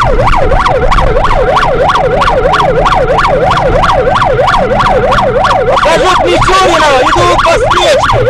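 Police car siren in fast yelp mode, its pitch rising and falling about three times a second, over the noise of the car driving at speed.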